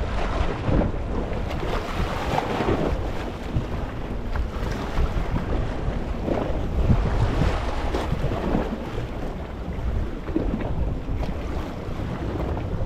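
Small sea waves washing and bubbling over a rocky shore in a continuous rush that swells and eases every second or two, with wind rumbling on the microphone.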